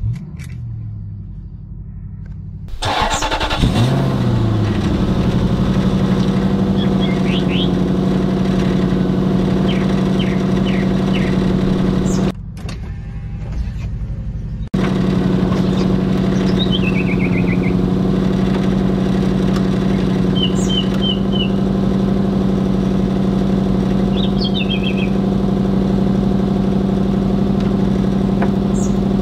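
A 2004 Lexus SC430's 4.3-litre V8 starting: the starter cranks for about two and a half seconds, then the engine catches, flares up and quickly settles into a steady idle that runs on. Near the end the idle is heard from beside the rear exhaust.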